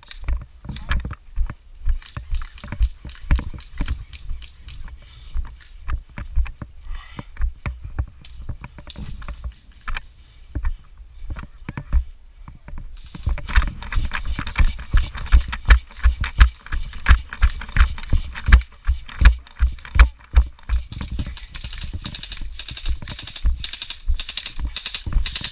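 Footsteps and gear clatter of a player on the move: low thumps about two to three a second, growing denser and brighter from about halfway through.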